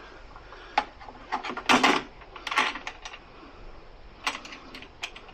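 Small metal and plastic parts clicking and clinking as a mower's quick-release handlebar lever, bolt and washer are handled and fitted, with a louder clatter about two seconds in.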